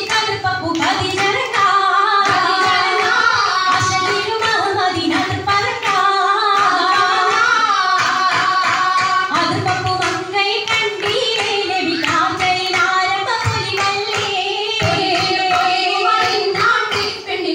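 Oppana song, a Mappila folk song, sung with rhythmic hand clapping keeping time throughout.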